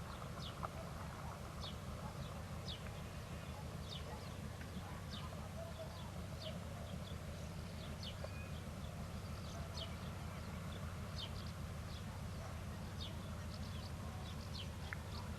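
Steady low rumble of an idling 3TE10M diesel locomotive, with a bird repeating short, high, falling chirps over it every second or so.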